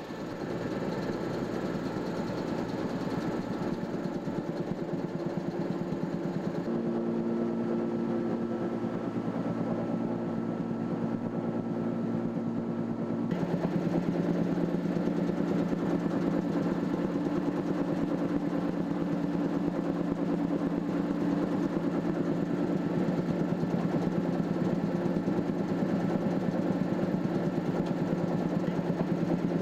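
Tractor engine running steadily with a drum chipper hitched on, giving an even mechanical hum. The pitch changes abruptly about 7 seconds in and again about 13 seconds in, where it gets a little louder.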